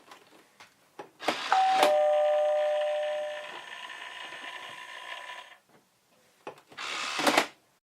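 A two-note ding-dong doorbell chime, a higher note falling to a lower one, ringing on for a few seconds as it fades. A short burst of noise comes as it starts and another near the end.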